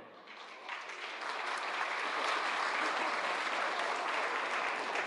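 Crowd applauding, starting faintly and swelling about a second in, then holding steady, just after a live orchestra's closing chord.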